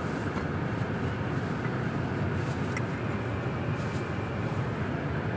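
Steady car cabin noise: the low rumble of the road and engine heard from inside the car, with a few faint ticks.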